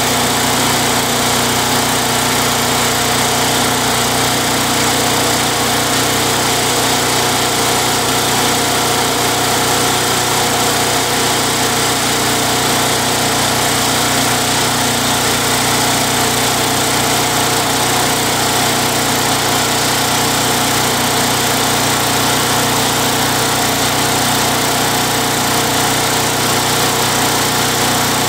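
Tecumseh 92cc single-cylinder four-stroke engine of a Craftsman lawn mower running steadily at a constant speed, without surging.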